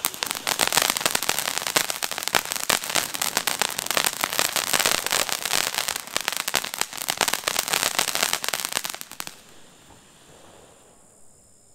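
Ground fountain firework crackling: a dense, rapid run of sharp pops over its hiss. It stops fairly suddenly about nine seconds in.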